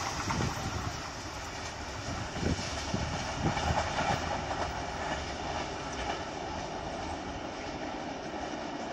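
A passenger train's coaches running away down the track after passing. The wheel clatter fades in the first second to a lower, steady rumble, with a few knocks of the wheels over rail joints a few seconds in.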